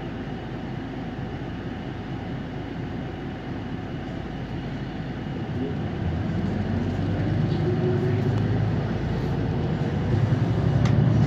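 City bus heard from inside the cabin. Its engine runs with a steady low hum, then about six seconds in it revs up with a rising note and grows louder as the bus accelerates.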